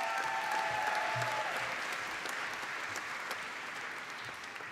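Audience applauding, fading gradually toward the end. A single held cheer rises over the clapping in the first second and a half.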